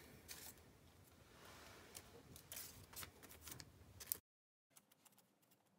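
Faint rustling and crackling of glue-soaked newspaper strips being pressed and smoothed onto a papier-mâché puppet head, with a paintbrush working the PVA glue. The sound drops out suddenly about four seconds in, leaving only a few faint ticks.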